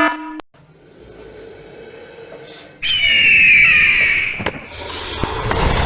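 Animated-video sound effects: a pulsing alarm tone cuts off about half a second in. Then, about three seconds in, a loud high-pitched squeal starts with a downward-sliding pitch.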